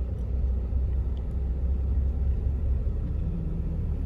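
A steady low rumble with no distinct pitch or rhythm.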